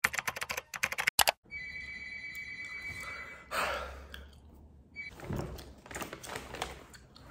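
Rapid clicking, then a steady high tone for about two seconds, a short whoosh about three and a half seconds in, and more scattered clicks near the end.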